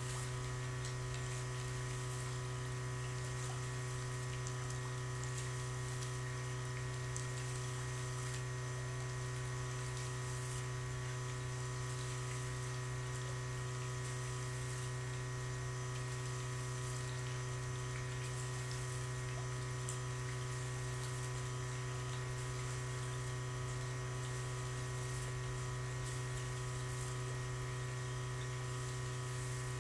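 A steady, unchanging low electrical hum with a row of constant higher tones above it.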